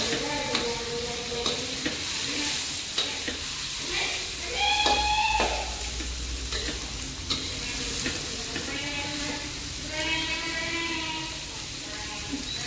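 Cut long beans sizzling in hot oil in a metal wok while a metal spatula scrapes and knocks against the pan in quick irregular clicks. A short pitched sound rises over the frying about midway.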